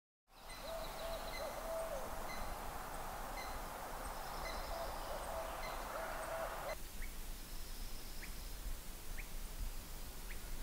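Forest ambience with birds calling. For the first six or so seconds a steady rushing background sits under a low hooting tone, and faint pips repeat through it. After that it turns quieter, with short rising chirps about once a second.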